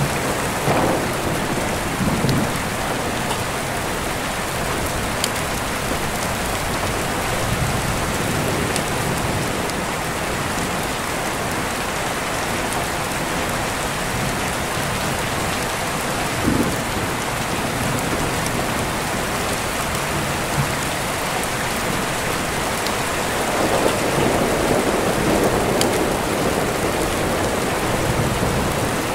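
Steady rain falling, with deep rolling thunder that swells up a few times; the longest rumble comes a few seconds before the end.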